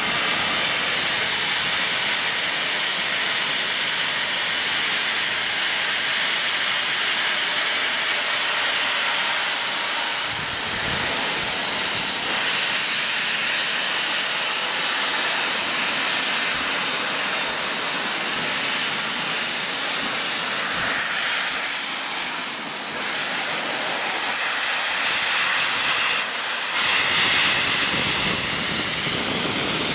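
Steady, loud hiss of steam blowing from the open cylinder drain cocks of Southern Railway Merchant Navy class locomotive 35028 Clan Line, growing louder near the end as the engine comes alongside.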